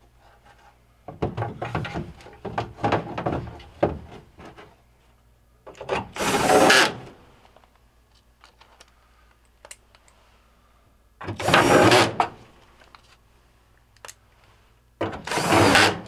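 Sheet-metal lint filter housing clattering as it is fitted back into the dryer's base, followed by a cordless drill driving screws in three runs of about a second each, a few seconds apart.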